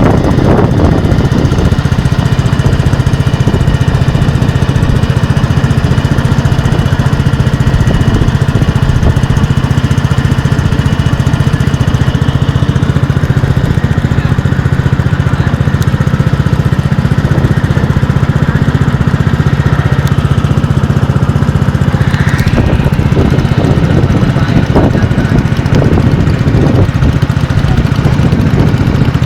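A vehicle engine runs steadily and loudly at an even pitch. A short rising whine sounds about three-quarters of the way through.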